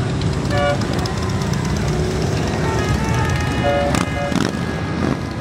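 Parade motorcycles passing with their engines running low and steady, with a few short beeps about half a second in and again around four seconds.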